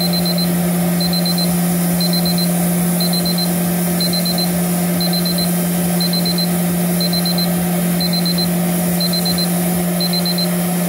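Digital probe thermometer alarm beeping in quick groups of four, once a second, because the probe reading is above its 100 °C set temperature. A steady low hum and rushing noise run underneath.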